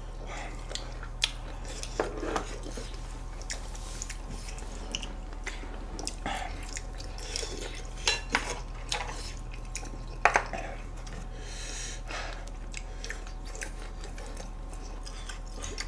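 Close-miked eating: chewing and mouth noises, with scattered light clicks of chopsticks against bowls and dishes, over a steady low hum.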